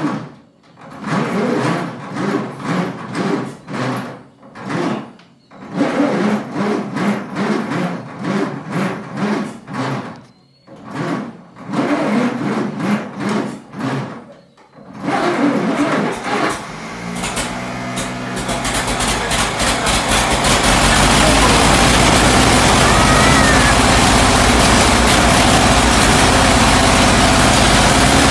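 A 1926 Chevrolet Superior K's four-cylinder engine is cranked on the electric starter in four rhythmic bursts with pauses between them. It catches about seventeen seconds in, runs unevenly for a moment, then settles into steady, loud running: its first start after more than 35 years standing.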